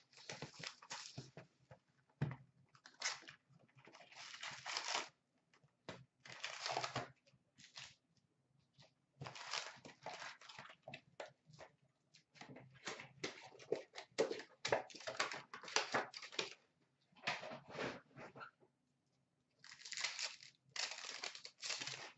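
Hockey trading cards being handled and flipped through, sliding against one another, in irregular bursts of rustling and scraping with short pauses between.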